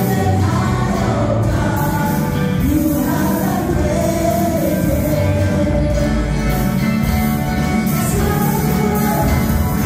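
Live worship band: several women singing together into microphones over keyboard and electric guitar accompaniment, amplified through the room's speakers.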